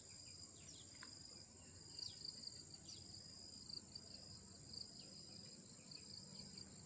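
Steady, high insect trilling, with faint short chirps that slide down in pitch scattered throughout.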